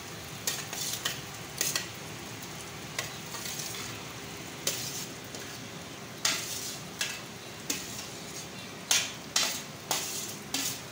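A steel ladle scrapes and knocks chopped onions and tomatoes off a steel platter into a pressure cooker, with sharp metal clinks every second or so that come faster near the end. Oil sizzles steadily underneath.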